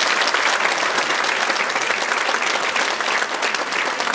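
Audience clapping steadily, a dense applause of many hands.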